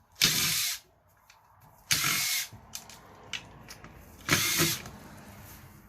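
Power drill-driver spinning out screws in three short bursts, each about half a second, roughly two seconds apart, as the circuit board of an Apple eMac is unscrewed.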